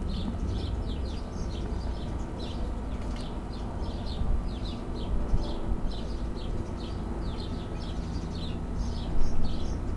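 Small birds chirping over and over in quick, short falling notes, over a steady low rumble, with a brief louder noise about nine seconds in.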